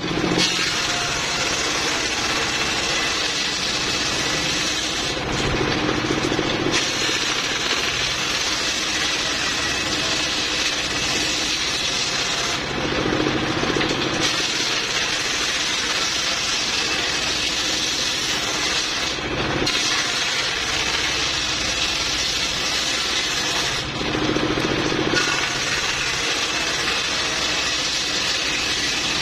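Homemade circular saw bench, belt-driven by a single-cylinder diesel engine, ripping wood planks in a run of cuts several seconds long. Four short breaks between passes let the engine's steady running come through on its own.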